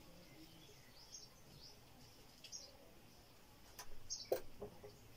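Faint squeaks of a marker writing on a whiteboard, with a couple of sharp taps about four seconds in.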